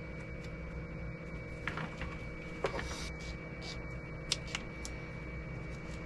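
Electrical tape being unwound and wrapped around a pair of heavy-gauge wires: scattered short crackles and clicks over a faint steady hum, with a brief ripping sound about three seconds in.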